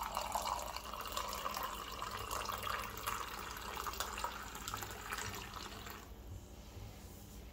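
Pumpkin cider running from the tap of a hollowed-out pumpkin keg into a glass, a steady trickle that stops about six seconds in.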